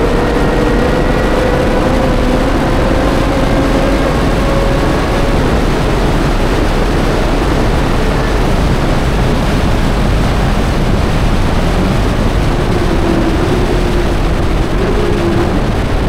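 High-performance sports car at speed on a race track: a loud, steady rush of wind and tyre noise. Under it runs the engine note, which climbs slowly over the first few seconds and is lower and unsteady from about twelve seconds in.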